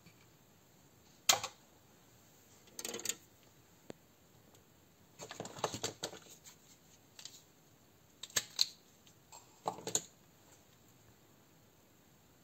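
Scattered clicks, taps and rustles of hands handling small tools, wires and parts of an airsoft pistol during a MOSFET install. The sharpest click comes about a second in, with a longer stretch of rustling and clicking around five to six seconds in and a few more clicks later.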